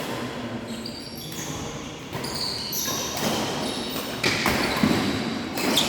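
A badminton rally: rackets hit the shuttlecock with sharp smacks about once a second, among short high squeaks of court shoes on the floor.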